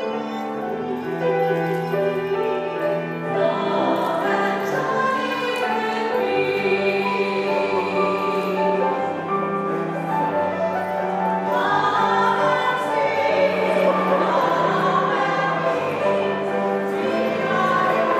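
Slow choral music: a choir singing long, held chords that change every second or two.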